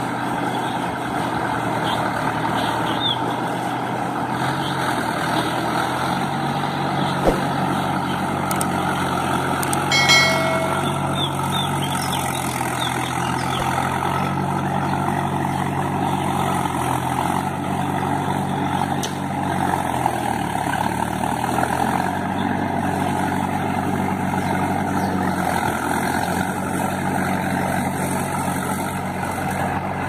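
Mahindra tractor's diesel engine running steadily under load as it pulls a rotary tiller through flooded, muddy ground, its engine note dipping and recovering twice. There is a brief knock and a short high-pitched tone about a third of the way in.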